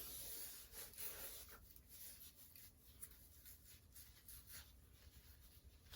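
Near silence with faint rubbing and handling noises, and a short click near the end.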